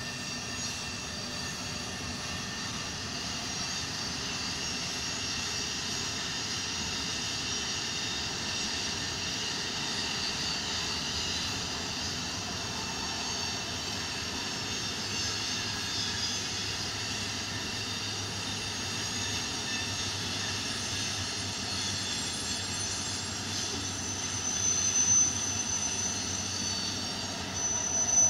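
A long freight train rolling past at a distance, its wheels running steadily over the rails. Brief high-pitched squeals come near the end.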